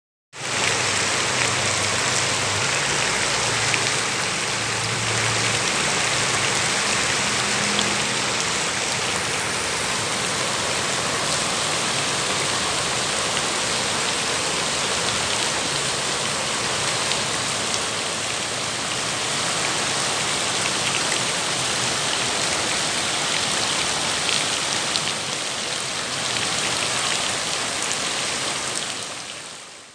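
Steady rain falling, a dense, even patter of raindrops, fading out at the very end.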